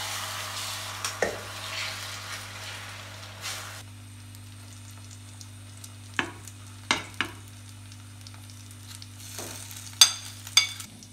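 Beaten egg poured into hot oil in a frying pan, sizzling hard and then dying down about four seconds in. Later a spoon knocks and scrapes against a plate and the pan several times, with a few sharp metal clinks near the end.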